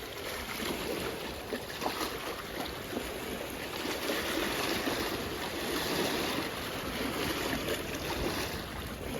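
Steady wash of water from small waves, with no clear single events.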